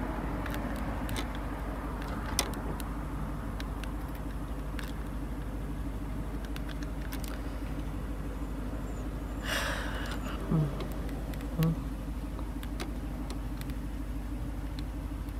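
Steady low buzzing hum with scattered faint clicks. A short rustle comes about nine and a half seconds in, followed by two brief low blips about a second apart, the loudest sounds.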